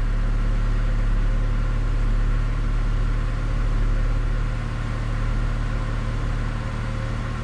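Honda Accord engine idling steadily just after starting on a new starter and ignition switch; the starter has released and is no longer sticking engaged.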